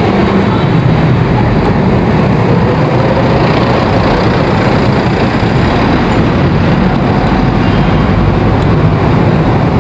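Steady, loud road traffic heard from a bicycle in a city street: the engines of cars, a jeepney-type van and motorcycles running close by, with no single sound standing out.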